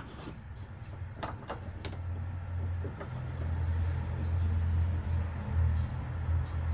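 A low, steady engine-like rumble that swells a few seconds in and holds, with a few light clicks in the first two seconds.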